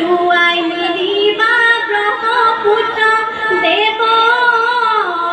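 A female voice singing a melody in long held notes that slide up and down between pitches.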